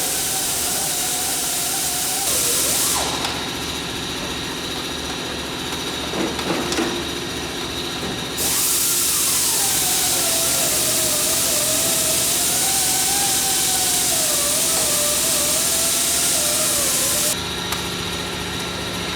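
A power tool running in two bursts, a short one and a long one, with a loud hiss and a motor whine that wavers up and down in pitch.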